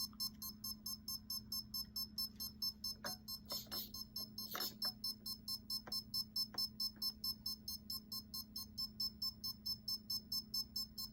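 RC airplane's brushless motor and speed controller beeping just after the battery is plugged in: a fast, even run of short high beeps, about five a second, that the owner says it doesn't normally make. A few faint clicks of handling partway through.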